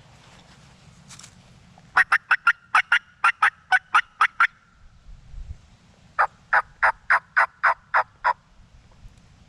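Hand-operated wild turkey call sounding two loud runs of about a dozen short, sharp, evenly spaced hen yelps, each run lasting two to three seconds, with a pause between them. A brief low rumble falls in the pause.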